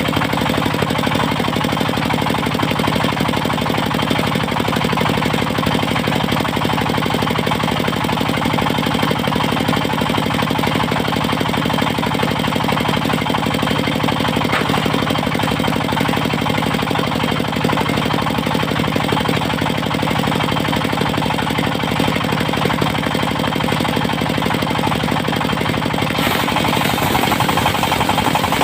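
Engine of a portable circular sawmill running steadily with a rapid knocking pulse. Near the end the sound changes, with more high hiss joining in.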